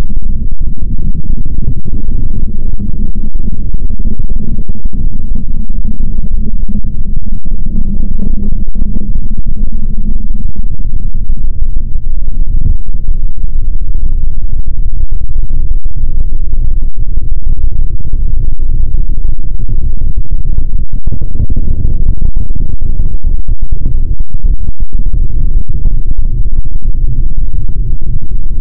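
A very loud, distorted low rumble that holds steady throughout, pushed to clipping.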